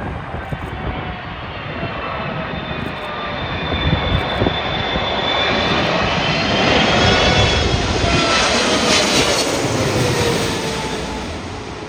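Large jet airliner flying past low on landing approach: its engines' noise swells to a peak and then fades, with a whine that falls in pitch as it goes by.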